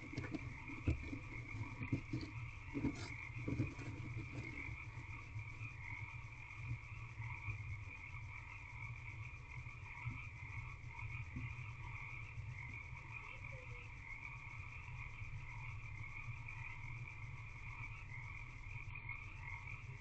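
A chorus of frogs calling steadily, over a low, steady hum. In the first few seconds there are a few soft scuffs as the brooding barn owl shifts on the wood-shaving nest bedding.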